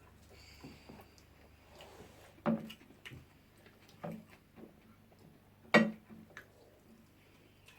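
Eating sounds: scattered soft clicks and knocks of tableware, three of them standing out, the loudest about six seconds in.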